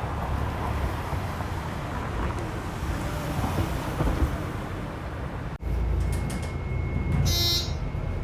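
Car traffic noise, a steady rumble and hiss of passing vehicles. About five and a half seconds in it cuts to a different steady low hum with a faint high whine, and a short buzzing tone sounds near the end.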